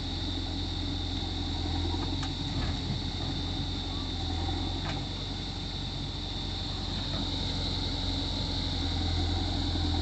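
Diesel engines of a JCB 3DX backhoe loader and a farm tractor running steadily with a low, even drone, over a steady high hiss. A couple of faint knocks come about two and five seconds in.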